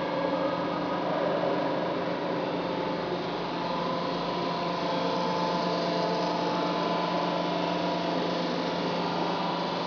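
Steel coil cut-to-length line running: a steady machine hum with several held tones as the leveller rolls feed flat steel plate through.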